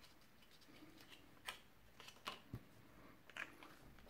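Faint rustling and a few soft taps of cardstock being handled and pressed together while a glue tab is stuck down, the taps scattered through the middle of an otherwise near-silent stretch.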